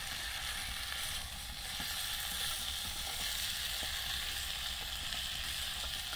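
Goulash ingredients sizzling in a camp cauldron over an open fire, a steady hiss with a few faint crackles, at the frying stage after the paprika and goulash spice go in and before water is added.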